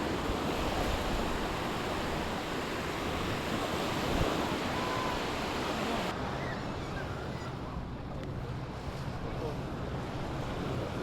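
Sea surf washing onto a beach, with wind on the microphone. The high hiss drops away abruptly about halfway through.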